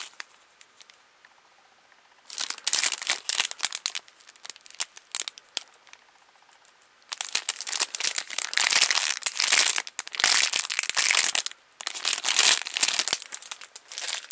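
Plastic packaging crinkling as it is handled, in several bursts: a short spell about two seconds in, then longer, louder handling from about seven seconds in until near the end.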